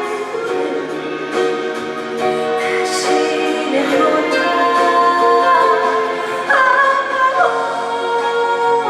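A woman singing a trot song live with musical accompaniment, holding long notes, with one higher note held about two-thirds of the way through.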